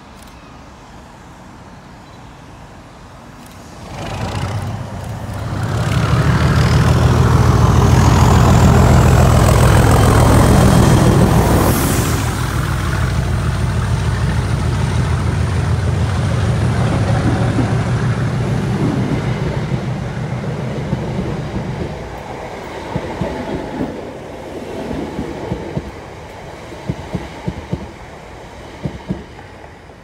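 Class 37 diesel-electric locomotive 37884 and its English Electric V12 engine working hard under power ('thrash') as it approaches and passes at speed, hauling two unpowered Class 321 electric units. A high whistle rises over the engine note as it nears. About two-thirds of the way through the engine sound drops away, leaving a run of rhythmic clicks from the dragged coaches' wheels over the rail joints.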